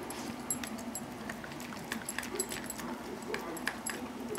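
Puppy eating canned dog food mixed with dry kibble from a bowl: irregular rapid clicks and crunches with a light metallic jingle.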